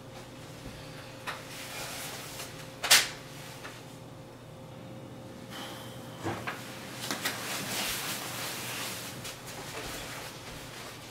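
A person handling things at an entryway closet: a sharp knock about three seconds in, a duller thump about halfway through, then a stretch of rustling.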